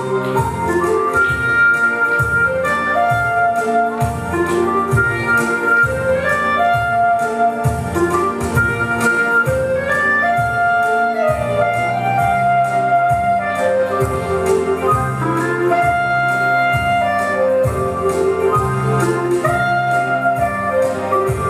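Instrumental music with a melody on wind instruments over a steady bass and a regular beat.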